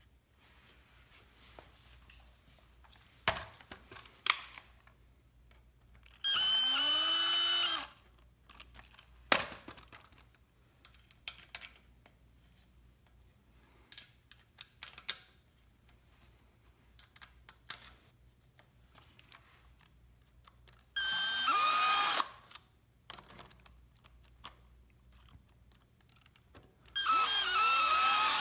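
Cordless power screwdriver driving the clamp screws in three short runs of about a second and a half each, its motor whine rising and falling in each run. Clicks and knocks of screws and parts being handled come between the runs.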